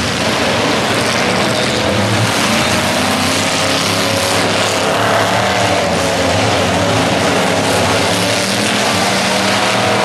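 Several demolition derby cars' engines running and revving hard over a constant noisy din, the engine pitch rising and falling as the cars manoeuvre and ram each other.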